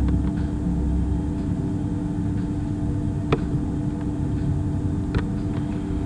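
Steady electrical hum with a constant low tone and rumbling background noise, with a couple of short sharp clicks, one about three seconds in and another about five seconds in.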